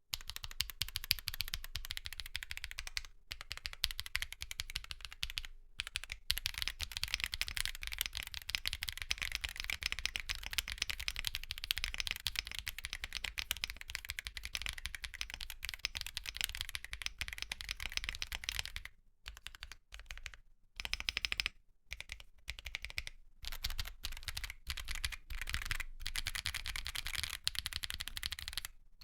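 Fast continuous typing on a mechanical keyboard with prelubed MMD Holy Panda tactile switches and Cherry profile PBT keycaps, a dense stream of key clacks with a few brief pauses, the longest about two-thirds of the way through.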